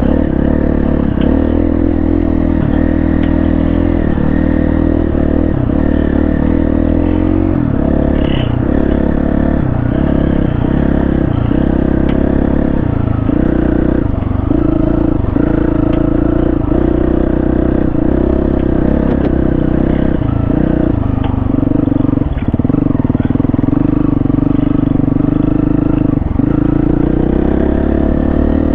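Dual-sport motorcycle engine running under way, its pitch dipping and climbing again about once a second as the throttle is rolled off and on, with light clattering from the bike.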